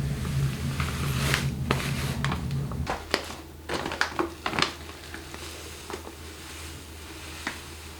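Plastic food-storage containers and dry-goods packets being handled: scattered light clicks, knocks and rustles. A low steady hum runs for the first three seconds and cuts off abruptly.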